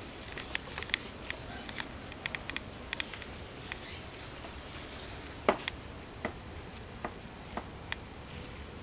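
Irregular short, sharp clicks and taps from a caique parrot: a quick cluster in the first three seconds, then sparser single clicks, the loudest about five and a half seconds in.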